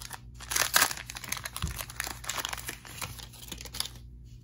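Foil booster-pack wrapper crinkling in the hands as the cards are slid out of it, then dying down near the end.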